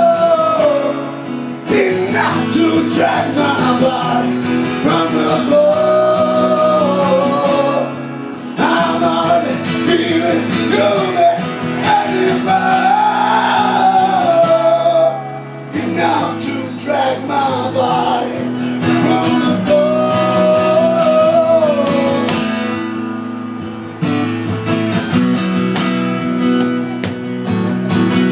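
Live acoustic music: a strummed acoustic guitar with a melody line over it that pauses briefly now and then and comes back.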